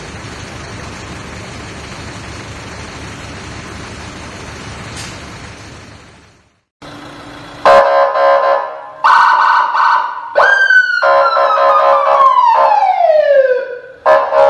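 A steady rushing noise, then after a brief silence an electronic police-style siren on a tractor: two loud steady horn-like blasts, then a tone that jumps up and slides slowly down over about three seconds, followed by more short blasts near the end.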